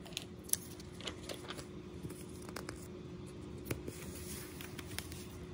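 Faint handling noise as the test paper and phone are moved to the next question: a few light clicks and rustles over a faint steady hum.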